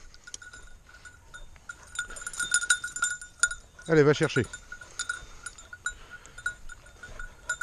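Bell on a springer spaniel's collar jingling steadily as the dog runs and quarters the field, with a short vocal call about four seconds in.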